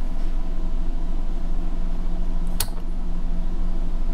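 Steady low hum with a few constant tones under it, and one sharp click about two and a half seconds in.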